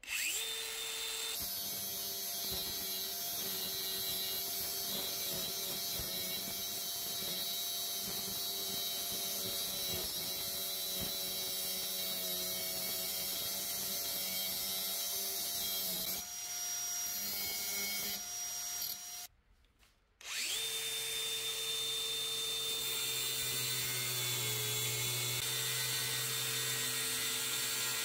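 DeWalt angle grinder with a thin cut-off disc cutting through a steel flat bar: a steady motor whine over a hiss. The sound breaks off for about a second about two-thirds of the way through, then the grinder runs on at a lower pitch.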